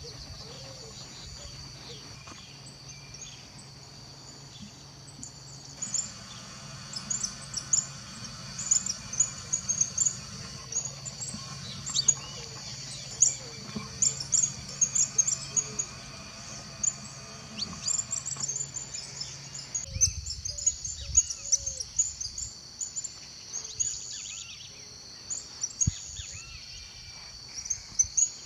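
Dawn chorus: many birds chirping and calling over a steady high insect drone. A low steady hum underneath stops about two-thirds of the way through.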